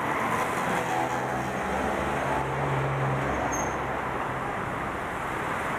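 Steady city street traffic noise with vehicle engines running. A low engine drone swells about two seconds in and fades about a second later.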